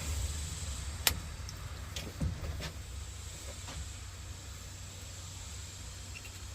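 Handling noises from work on the tractor's hydraulic lines: one sharp click about a second in, then a few lighter clicks and a short falling squeak, over a low steady rumble.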